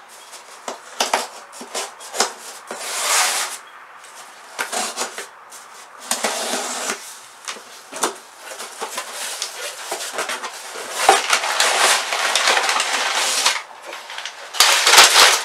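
Cardboard shipping box being opened by hand: a knife slitting packing tape, cardboard flaps scraping and clicking, and crumpled brown packing paper rustling as it is pulled out, loudest near the end.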